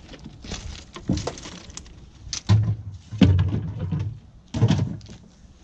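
Irregular knocks, bumps and heavier low thuds from a heavy boxed multi-fuel stove being handled and manoeuvred, the loudest thuds a little past the middle.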